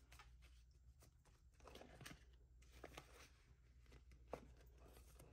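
Near silence with faint rustling and a few soft ticks of paper bills and cash envelopes being handled, the clearest tick about four seconds in.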